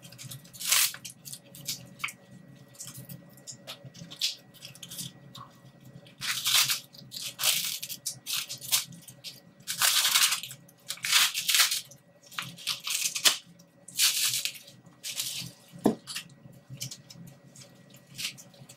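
Combat application tourniquet being tightened round an arm: its nylon strap pulled through the buckle and the hook-and-loop (Velcro) strap pressed down, heard as a series of short ripping noises, thickest and loudest in the middle.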